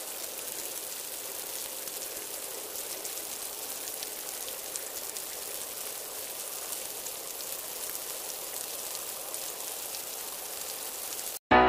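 Old-film crackle and hiss, a steady hiss with scattered fine clicks, under an SMPTE Universal Leader countdown. It cuts off suddenly near the end, and piano music begins.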